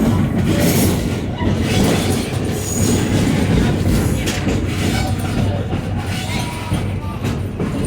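Passenger train rolling along the track, heard from on board: a steady rumble and rattle of wheels on rail, with a few faint, brief squeals.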